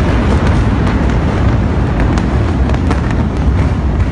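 Sustained low rumble of a massive chemical warehouse explosion dying away, with many sharp cracks and pops of smaller secondary blasts scattered through it.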